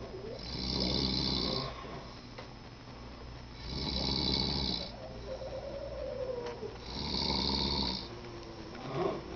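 A person snoring: three loud, rattling snores about three seconds apart, each lasting just over a second, with quieter breathing between them.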